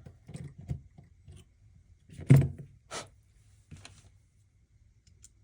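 Metal kitchen cabinet hinge worked open and shut by hand to test a short chain restrictor screwed across it: a few light clicks, a heavy knock a little over two seconds in, a sharp click just after and a short rattle near four seconds.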